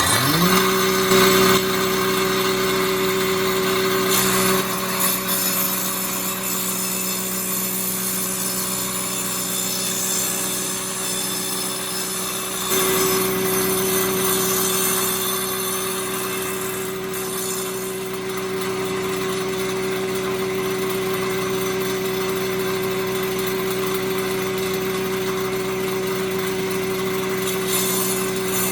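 Power saw motor starting up and running with a steady whine. The whine weakens from about four to thirteen seconds in, then comes back at full strength.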